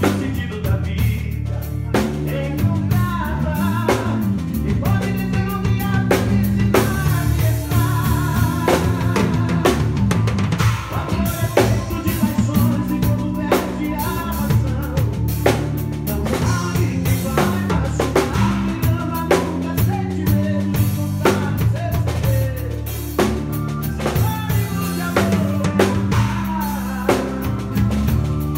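Small live band playing a song at a sound check: a drum kit keeps a steady beat under an electric bass line, with other pitched parts above.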